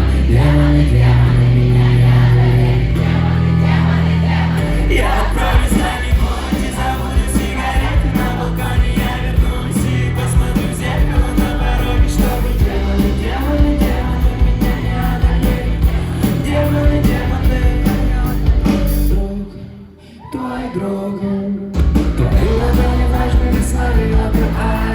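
Live band playing a rock song in an acoustic arrangement, with a singer. About twenty seconds in the music drops out for a couple of seconds, then the band comes back in.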